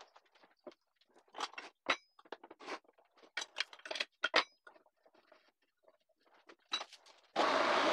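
Scattered sharp clicks, knocks and scrapes of wood and steel parts being handled on a homemade metal wood lathe as a workpiece is fitted between the centres and the tailstock and tool rest are set. Near the end a motor starts suddenly and runs steadily.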